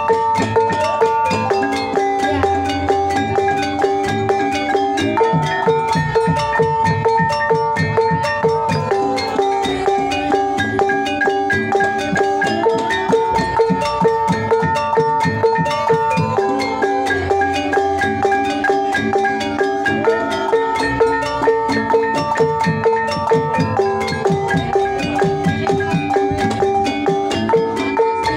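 Javanese Banyumasan gamelan ensemble playing a gending: bronze gong-chime kettles ring out a repeating melody of held notes over dense kendang hand-drumming.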